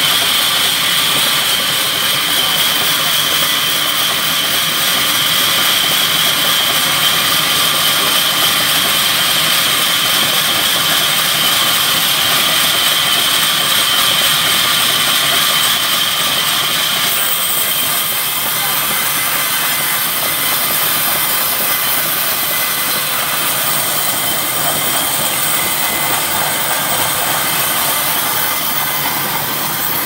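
Band sawmill's blade running and sawing through a rain tree log, a loud steady noise with a high whine. A little past halfway the whine stops abruptly and a steady hissing run of the saw carries on.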